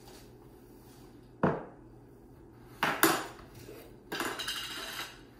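A metal spoon and glass jars knocking and clinking: a sharp knock, then two quick clinks. Then about a second of rasping as a screw-top lid is turned on a glass jar.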